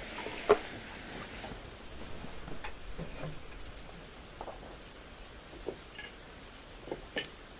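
A bowl set down on a counter with one sharp knock about half a second in, over a steady low hiss of background ambience. A few smaller taps and clinks follow as the bowl is handled.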